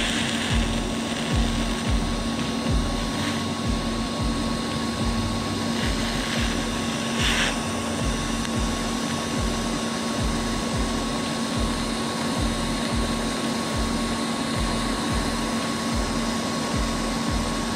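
TIG welding arc burning steadily on the steel spider gears and differential case: a steady hiss with a constant hum and a low, regular throb beneath it.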